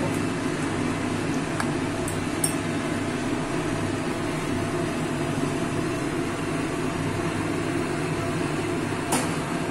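Steady, even background hum and rush, like a kitchen fan or gas burner running, with a few faint clicks of utensils.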